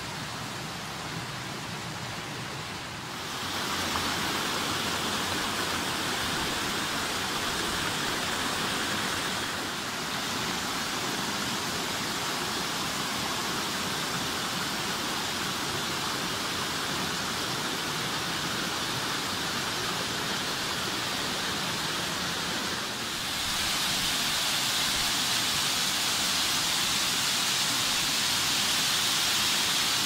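Rushing water of a rocky mountain stream and waterfall, a steady even rush that grows louder and brighter about three seconds in and again near the end.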